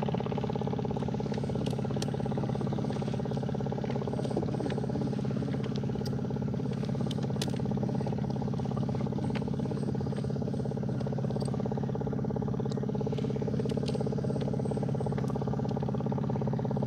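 Small boat engine running steadily at a constant speed, with scattered light clicks and knocks.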